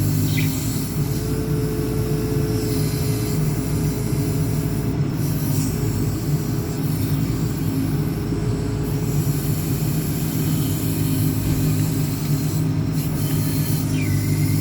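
JCB 4CX backhoe loader's diesel engine running steadily while the rear backhoe is worked, with a brief high squeak just after the start and again near the end.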